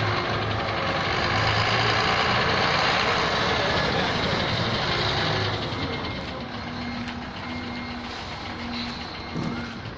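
Ashok Leyland heavy truck's diesel engine running as the truck is manoeuvred, louder for the first half and easing off after about five seconds. Later a short electronic beep repeats four times, under a second apart.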